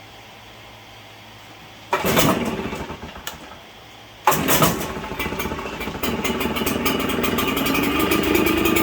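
RedMax leaf blower's two-stroke engine pull-started on choke after a carburettor rebuild: it fires about two seconds in and fades out, then catches on the next try about four seconds in and keeps running, its speed slowly rising.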